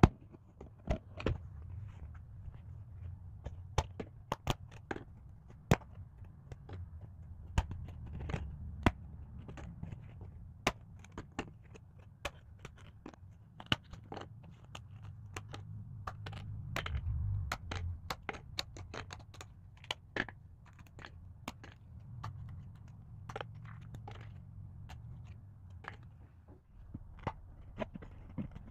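Die-cut pieces of a 3D cardboard puzzle being pressed out of their sheet by hand: irregular crisp snaps and clicks, with the card rubbing and scraping in between.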